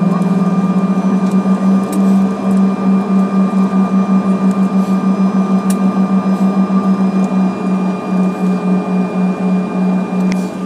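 Bombardier CRJ-700's twin rear-mounted turbofans idling, heard inside the cabin: a loud low drone with a steady higher whine. The drone throbs as the two engines run slightly out of step, the throb quickening to about four beats a second in the later part.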